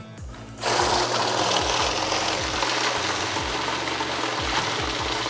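Cassida 5520 bill counter feeding a stack of 111 bills, mostly singles, through its rollers: a steady, fast whirring rush of paper that starts about half a second in.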